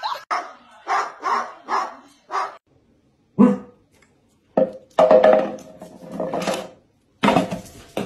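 A run of short, evenly spaced vocal bursts, then a corgi barking loudly several times from about halfway through, one bark drawn out long.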